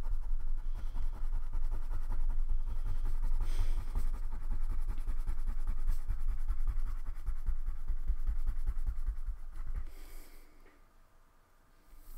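Wax crayon rubbed back and forth on paper in quick coloring strokes, a dense scratchy rubbing that fades out near the end.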